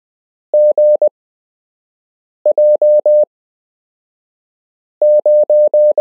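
Morse code tone, a single steady pitch keyed into dits and dahs, sent in three short groups with silent gaps between: characters of a random amateur radio call sign being sent for copying practice.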